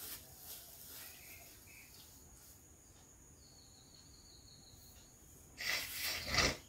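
Near silence: room tone with a faint, steady high-pitched whine, then a short hissing rustle near the end.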